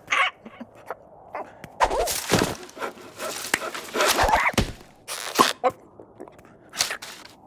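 Cartoon sound effects made of short, separate noises: an animated bird character's wordless vocal noises mixed with thumps and quick noisy hits, the busiest stretch in the middle.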